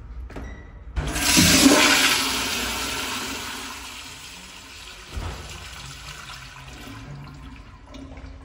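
Commercial flushometer toilet flushing: a sharp start about a second in, then a loud rush of water that peaks at once and slowly fades. The high hiss cuts off suddenly about seven seconds in, with a brief thud about five seconds in.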